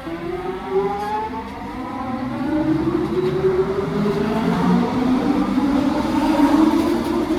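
SkyTrain Mark I train pulling away, the whine of its linear induction motor propulsion rising steadily in pitch as it accelerates and growing louder.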